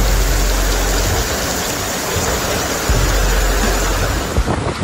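Heavy rain pouring down on a flooded city street, mixed with rushing floodwater: a steady, dense wash of water noise.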